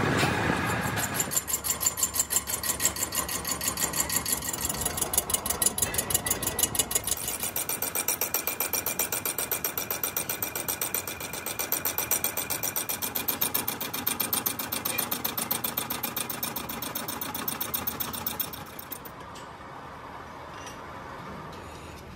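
Metal lathe running and machining a cast pump body for a hand-operated donkey water pump, a steady mechanical rhythmic pulsing with fine rapid ticking. The cutting stops abruptly near the end, leaving a quieter steady hum.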